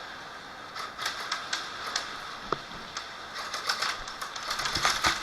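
Airsoft gunfire: scattered single shots, then rapid bursts of clicking shots and BB hits, picking up and getting louder about four seconds in.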